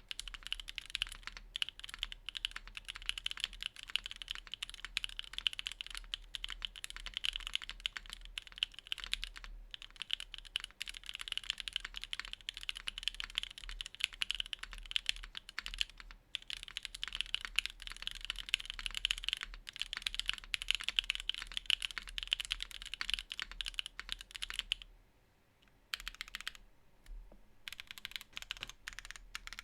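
Continuous fast typing on a gasket-mounted Keycult No. 2/TKL keyboard with an aluminium plate, stock Gateron Cream Soda linear switches and GMK keycaps: a dense, even clatter of key presses. The typing stops briefly about 25 seconds in, then resumes.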